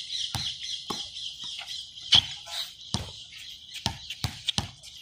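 Basketball bouncing on a hard outdoor court, about eight irregular dribbles, over a steady background of birds chirping.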